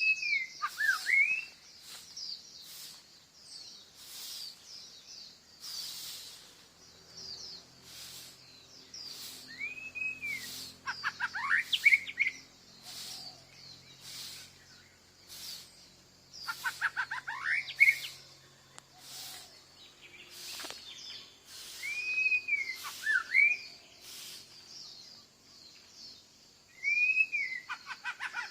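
Wild birds singing: one bird repeats a short phrase of arching whistles and quick descending notes about every five to six seconds, over continuous rapid high-pitched chirping from others.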